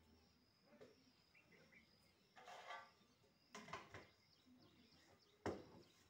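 Crows perched on a metal disc plough give a few short, faint caws. A sharp knock is heard near the end, and a thin steady high buzz sits behind them.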